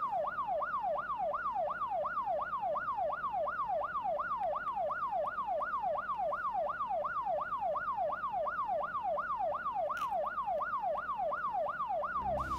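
Electronic siren sound effect in a fast, even yelp, the pitch sweeping up and down about three times a second: a TV news channel's breaking-news alert.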